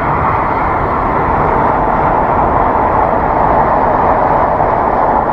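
High-speed train passing at speed, a loud steady rushing noise heard through an open window. A meter reads it at about 70 to 80 decibels.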